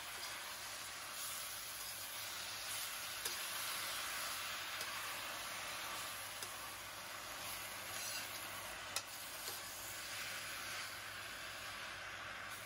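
Water spinach and chopped red chilli sizzling steadily in hot oil in a wok while a metal spatula tosses them, with a few sharp clicks of the spatula against the pan.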